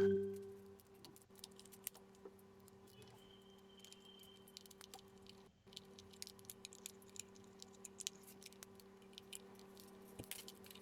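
Faint scattered clicks and light taps of hard plastic parts being handled and fitted together as a hair dryer is reassembled, starting with one sharp knock. A low steady hum runs underneath.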